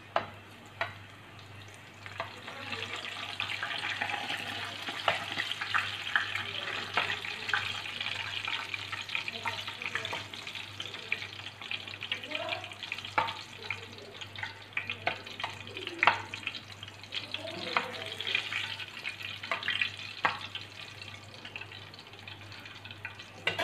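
Stuffed bitter gourds (karela) shallow-frying in oil, a steady sizzle and crackle that grows louder about two seconds in. Scattered sharp clicks of metal tongs against the pan and plate as the fried gourds are lifted out.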